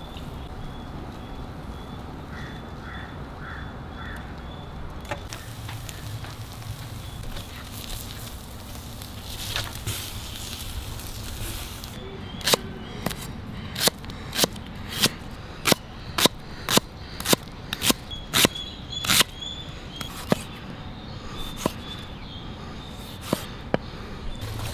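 Large knife slicing red onion on a wooden chopping block: a run of sharp knocks, about two a second, each time the blade hits the wood, starting about halfway in and lasting several seconds. Crows caw faintly in the background.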